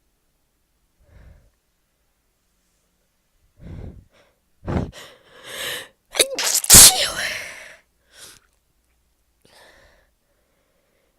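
A person with a heavy, congested cold sneezing. A few short breaths in build up to a sharp sneeze about five seconds in, then a louder, longer sneeze right after it, followed by a couple of faint sniffs or breaths.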